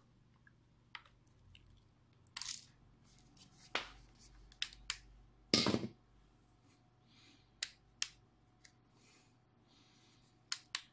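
Scattered small clicks and plastic handling noises from a rechargeable COB LED work light as its charging cable is unplugged and the light is switched on and handled, with a longer, louder rustle a little past the middle.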